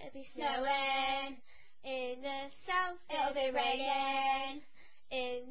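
A young girl singing unaccompanied, short phrases of held notes with brief pauses between them.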